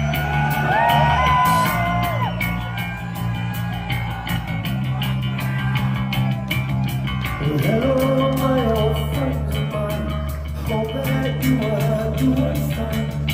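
Live hard rock band playing loud: electric guitars, bass guitar and drum kit, with the lead singer's vocals coming in a little past halfway.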